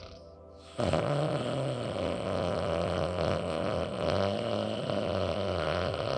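Ujjayi pranayama breath: one long breath drawn through the nose against a narrowed throat, with a steady, snore-like rasp. It starts about a second in and lasts about five seconds.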